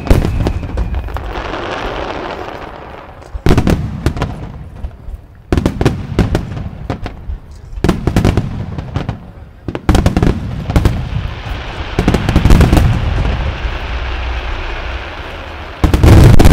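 Aerial firework shells bursting in a barrage, with sharp booms coming in clusters every two seconds or so and a crackling hiss of burning stars between them. A very loud cluster of bursts hits near the end.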